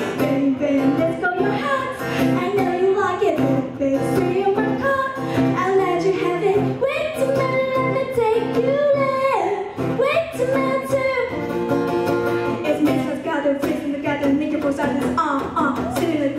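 A singer's voice with guitar accompaniment, the voice gliding through held notes and runs.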